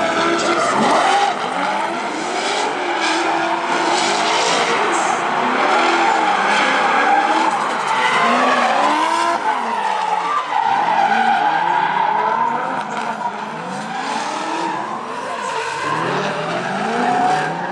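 Drift cars sliding in tandem: the Nissan S13's 600 hp LS7 V8 revs hard up and down again and again while the tyres screech through a long, smoking slide.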